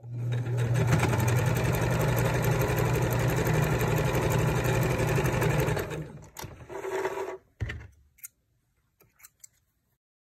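Electric sewing machine stitching fabric, running steadily at a fast, even needle rate for about six seconds, then slowing and stopping. A few soft clicks follow before silence.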